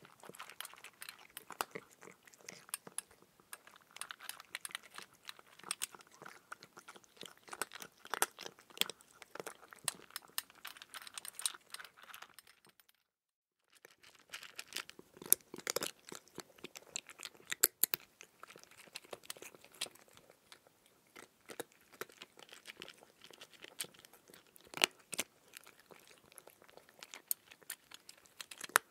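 A person chewing raw cucumber: a dense, irregular stream of crunches and mouth clicks, broken by about a second of dead silence around the middle.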